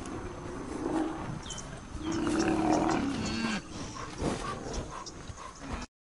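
Low, moo-like calls from a rhinoceros, the longest and loudest about two seconds in, lasting over a second and dropping in pitch at the end, with faint bird chirps above. The sound cuts off abruptly near the end.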